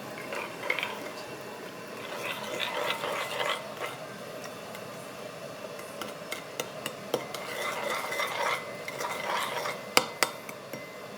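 A utensil stirring and scraping in a bowl in several short spells, with light clinks, then two sharp knocks close together near the end.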